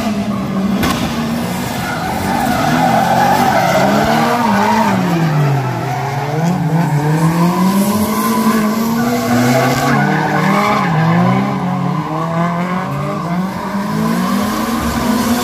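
Drift car's engine revving up and down repeatedly, its pitch rising and falling several times, with tyres squealing as the car slides.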